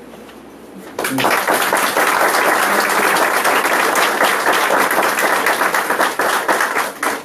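Small audience applauding: many hands clapping, starting suddenly about a second in and stopping near the end.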